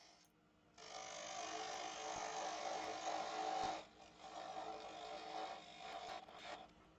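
Parting tool cutting into a spinning beech blank on a wood lathe, tidying up the tenon: two steady cutting passes of about three seconds each, with a short break between them.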